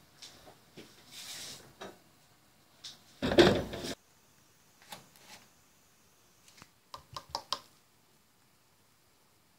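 Kitchenware being handled: scattered light knocks and clinks of a glass bowl and pan. One louder, noisier clatter lasting under a second comes about three seconds in, and a quick run of about five ringing clinks comes near the end.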